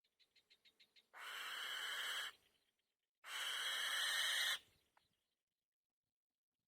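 Bird chick begging for food: a quick run of about seven short ticks, then two long hissing screeches of about a second each.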